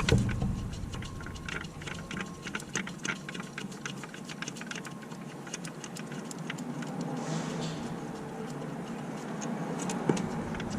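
Quarter-inch ratchet with an extension and 10 mm socket clicking in short irregular runs as the bolt holding the crankshaft position sensor is backed out, the clicks thinning out after the first few seconds, with a single knock near the end.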